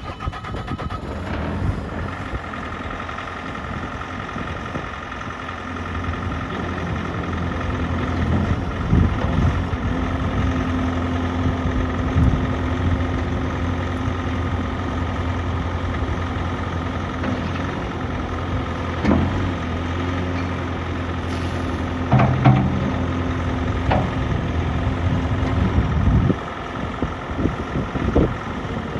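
Bobcat T650 tracked skid steer's 74 hp diesel engine running steadily. It grows louder and deeper about six seconds in and drops back shortly before the end, with a few knocks in the last third.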